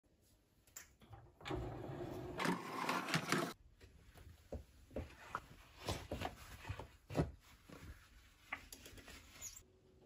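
Indesit dishwasher's lower wire rack rolling out on its wheels with a rattle for about two seconds, then scattered plastic clicks and knocks as rubber-gloved hands grip and unscrew the salt reservoir cap.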